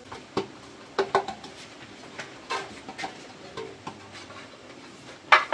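Scattered short knocks and clinks of kitchen utensils and pans being handled on a worktop, about one every second, the loudest a sharp clatter about five seconds in.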